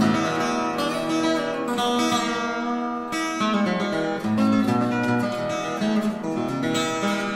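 Background music: an instrumental acoustic guitar tune with picked and strummed notes.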